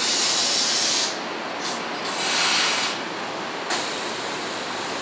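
Seibu 9000-series commuter train hissing compressed air as it comes to a stop at the platform. A long hiss comes first, then shorter ones, and the hissing ends about three and a half seconds in.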